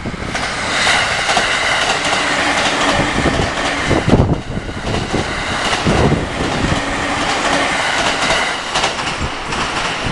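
A train passing close by on the JR Takasaki Line at a level crossing: a continuous rumble of wheels on rail, with clattering thuds over the rail joints and a high, steady squeal from the wheels.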